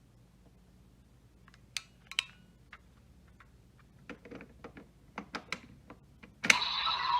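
Scattered plastic clicks and taps from handling a toy transformation belt. About six and a half seconds in, a sharp click sets off a loud electronic sound from the toy belt's speaker.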